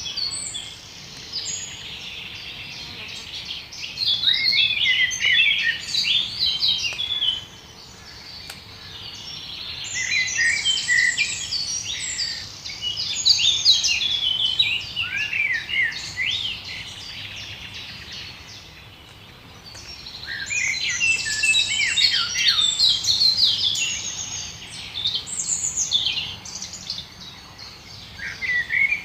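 Birdsong: a songbird singing in repeated bouts of quick, varied chirps and slurred whistles, each bout lasting a few seconds, with short pauses between, over a faint steady background hiss.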